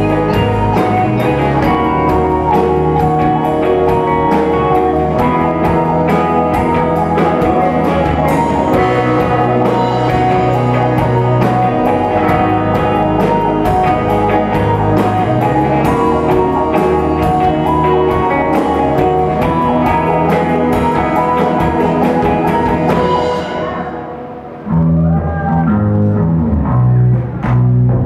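Live rock band playing, with electric guitars, keyboards and drum kit. About three-quarters of the way through, the bright top end drops out and the music dips for a moment, then carries on lower and sparser.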